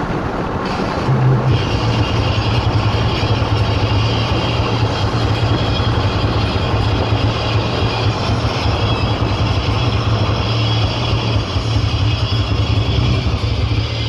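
Steady road and engine noise heard from inside a car driving at speed, with a constant low drone under the tyre rush.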